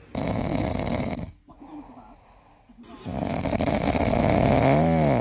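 A dog snoring: two long snores, the second ending in a short squeaky tone that rises and then falls.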